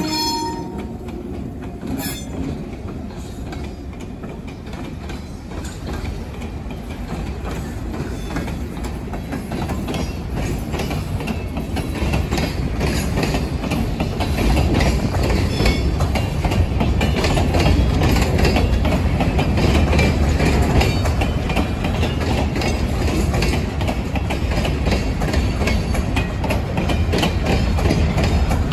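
Freight train of hopper cars rolling past close by on steel wheels and rails, a continuous rumble and rattle that grows louder about halfway through, with brief faint high wheel squeals. A diesel locomotive horn cuts off in the first second as the GP10 locomotive clears the crossing.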